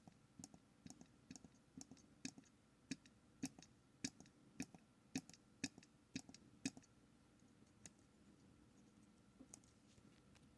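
Small tactile push buttons on an MSP430 microcontroller board clicking faintly as they are pressed, about twice a second for the first seven seconds or so, then a couple more presses near the end.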